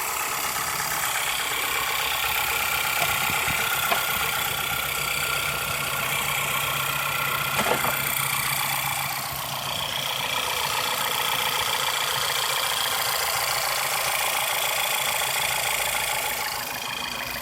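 Car engine idling steadily with a persistent rapid tick-tick-tick, still there after Sea Foam has been run in the engine oil for about 30 miles.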